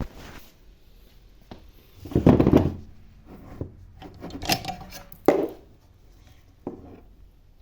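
Rummaging: objects handled, shifted and knocked against each other, with the loudest clatter about two seconds in and shorter knocks and rubs after it.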